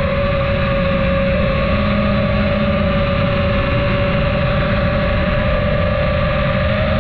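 Steady whine from the motor of the bike being ridden, holding nearly one pitch throughout, with wind rushing on the microphone.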